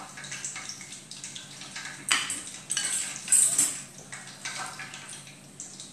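Metal teaspoon scraping and clinking against a glass bowl and mussel shells while scooping and pressing in a stuffing; a cluster of louder scrapes about two to three and a half seconds in.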